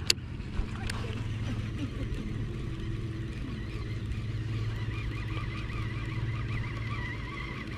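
A steady low motor hum, with a sharp click just at the start.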